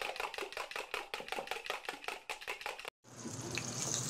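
Rapid, even knife-chopping strokes on a board, about six a second, that stop abruptly about three seconds in; then a steady sizzle like food frying in a pan, growing louder toward the end.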